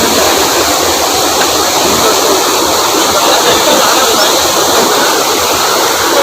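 Rainwater rushing over a check dam: a loud, steady rush of flowing water.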